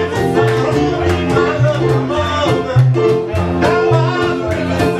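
Live band music: guitar and singing over a steady beat and a stepping bass line.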